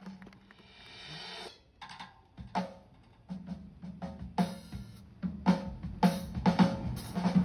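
Marching band percussion playing scattered drum and cymbal hits that start sparse and grow denser, building toward the next section of the show, over a low held note that comes in a few seconds in.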